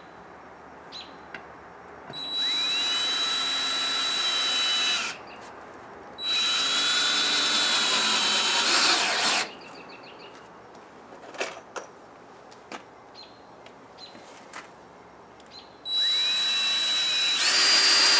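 Cordless drill running in three bursts of a few seconds each, its motor whine rising in pitch as it spins up at the start of each burst, as it drives into a wooden frame. There are a few small knocks and clicks in the quiet gaps between bursts.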